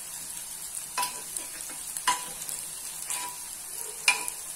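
Metal spoon stirring a tomato mixture in an aluminium pressure-cooker pot, clinking on the pot four times, about once a second, each clink with a short ring, over a steady frying sizzle.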